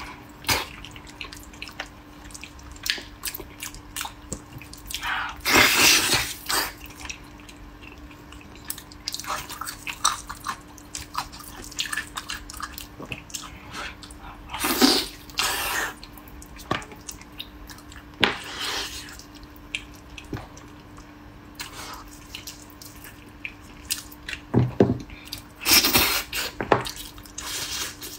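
Close-up wet eating sounds of a person gnawing and sucking sticky braised pork trotters: scattered bursts of lip smacking, sucking and chewing, with a faint steady hum underneath.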